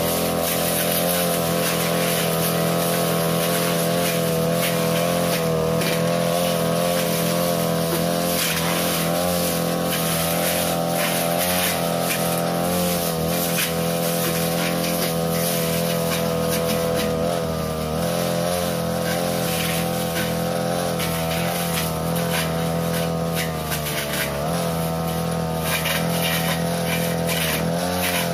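42cc two-stroke brush cutter running steadily at high speed, its metal blade cutting through thick grass and undergrowth. The engine note sags briefly a couple of times as the blade takes the load.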